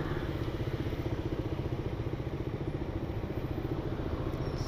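Motorcycle engine idling and running slowly in traffic, a steady, fast, even pulsing beat.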